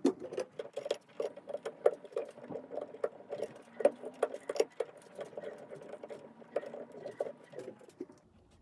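Blue plastic wire nut being twisted by hand onto a bundle of copper wires in a metal junction box: a run of quick scratchy clicks and rubbing strokes, several a second, that stops shortly before the end.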